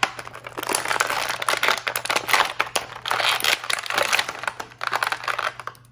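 Clear plastic blister packaging crinkling and crackling in a dense, irregular run of sharp clicks as an action figure is handled and pulled out of it.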